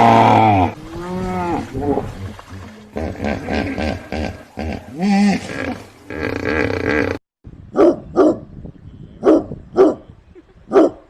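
For about seven seconds, loud, long, pitched animal calls waver up and down in pitch. Then, after an abrupt cut, a dog gives about five short barks in quick succession.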